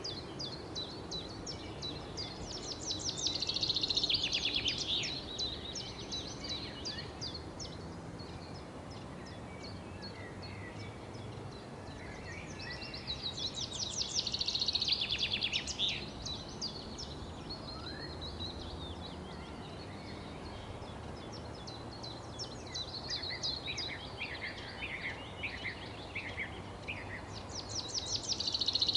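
Songbirds chirping: loud bouts of rapid, high chirps come three times, with another starting near the end and scattered chirps in between, over a steady low background hiss.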